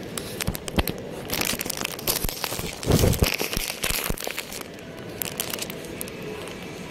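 Rustling and crinkling close to the microphone, with scattered clicks and a louder burst about three seconds in: handling noise from a phone being carried while filming.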